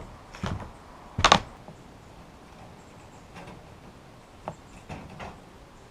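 Sawmill bandsaw blades handled and hung on wall hooks: two short metallic knocks, the louder about a second in, then a few light clicks near the end.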